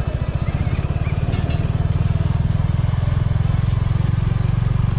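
Motorcycle engine running steadily while riding along, an even, fast low throb.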